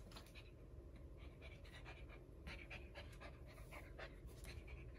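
Golden retriever puppy panting faintly in short, quick, uneven breaths over a low steady hum.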